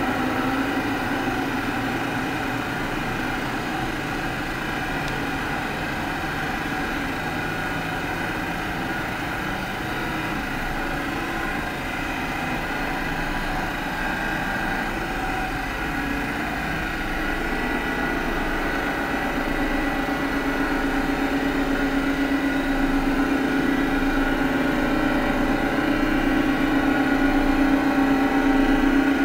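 Electronic ambient music: a dense, sustained drone of layered synthesizer tones that swells slowly in the second half, its low note returning strongly near the end.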